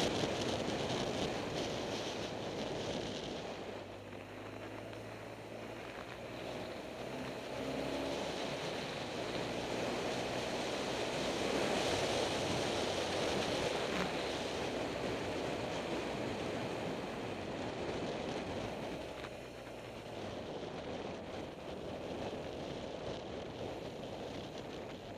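Road vehicle's engine running on the move under a steady rush of wind over the microphone, the engine note rising and falling a few times about six to nine seconds in.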